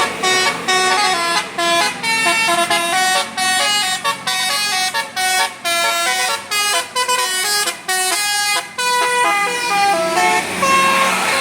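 A bus's telolet Basuri musical horn playing a tune of short stepped notes with brief breaks between phrases. The tune stops near the end, leaving a rushing noise.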